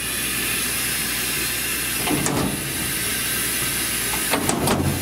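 Steady hiss of air blowing inside a Walter Helitronic Mini Power CNC tool and cutter grinder, with a few clicks and knocks near the end.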